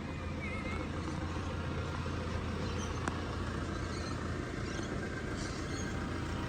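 Car moving slowly with its engine running, heard from inside the cabin as a steady low rumble.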